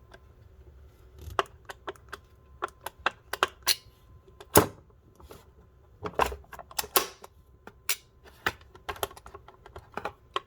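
Irregular sharp plastic clicks and taps from handling a Master Lock Bluetooth portable lockbox, with one louder knock about four and a half seconds in.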